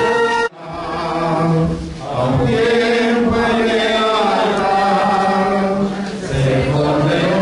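A group of voices singing a slow hymn together, with long held notes. About half a second in, the sound cuts off abruptly and the singing starts again.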